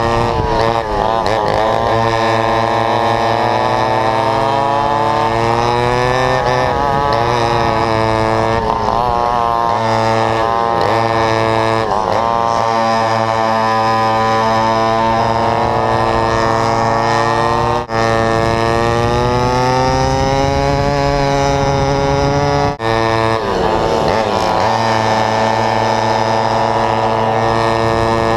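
Vintage racing go-kart's McCulloch MC-91 two-stroke engine at racing speed, heard onboard. The revs dip and climb again several times through the corners, and other karts' engines run alongside.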